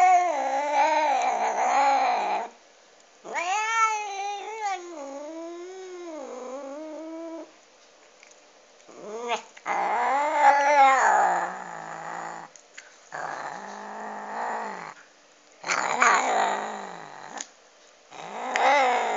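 Domestic cat growling and yowling over a duck bone it is eating: a string of long, wavering calls, each a couple of seconds long, with short pauses between them. This is a food-guarding growl.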